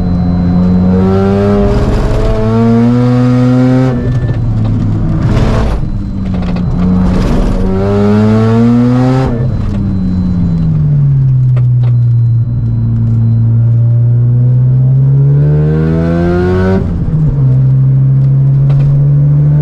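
Single-turbo Mazda RX-7 FD3S's twin-rotor 13B rotary engine at full race pace, heard inside the car: revs climb through the gears several times, with short bursts of noise at the gear changes. About halfway in, the revs fall away in one long drop, stay low for a few seconds, then climb again before another shift near the end.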